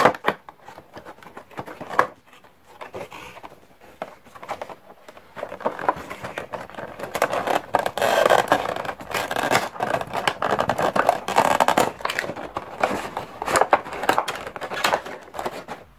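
Cardboard toy box being handled and opened, with the clear plastic insert tray scraping and crinkling: rustles, scrapes and small clicks, a few sharp clicks at first, then busier and louder from about five seconds in.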